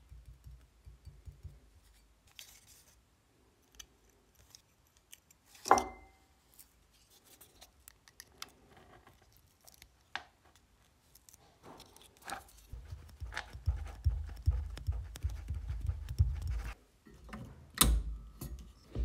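Close handling of a plastic etching stencil being pressed and smoothed onto a mirror-polished steel hatchet head on a rubber mat: scattered light taps, rubs and crinkles, with a sharp ringing clink about six seconds in and a few seconds of low rubbing in the second half. A loud click comes near the end.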